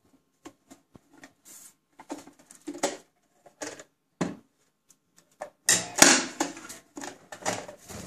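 Irregular clicks and light rattles of a metal wire bird cage being handled at its door and bars. About six seconds in comes a louder clatter as the hinged wooden nest box knocks against the cage.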